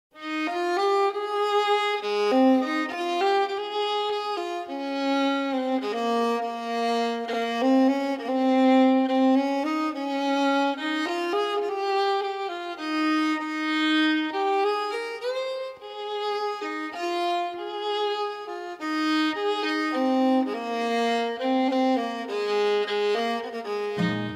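Background music: a solo violin playing a slow, legato melody, with no bass or drums under it.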